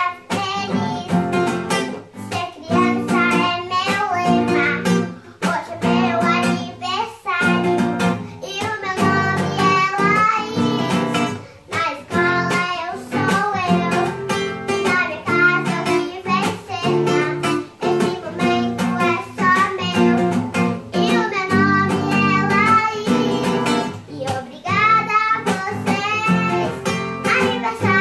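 A young girl singing a song to a strummed acoustic guitar accompaniment, with short breaks between sung phrases.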